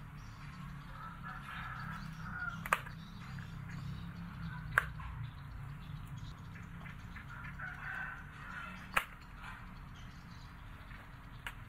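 Knife cutting bell peppers, its blade knocking sharply on the cutting surface three times a couple of seconds apart, with birds calling in the background.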